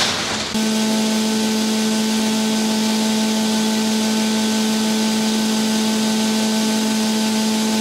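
Briefly a semi truck's engine as it pulls away, then a steady, even machine hum with a strong fixed pitch and several overtones from the grain bin site's fan machinery running.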